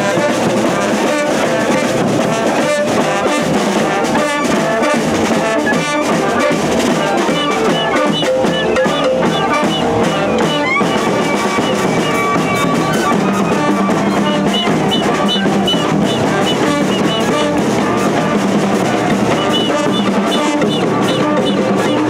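Street brass band playing: brass horns and a saxophone carry the tune over a bass drum and cymbals.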